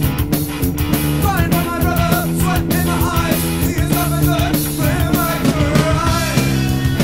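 Punk rock band recording: electric guitar, bass and drum kit, with a voice singing a wavering melody over them from about a second in until near the end.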